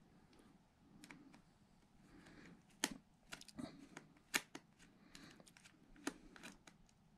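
Faint, irregular small clicks and taps with light rustling: hands handling screws and the battery inside an open Alienware m15 laptop. A few sharper clicks come in the middle.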